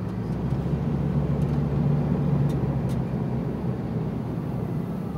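A motor vehicle driving, its engine running in a steady low hum.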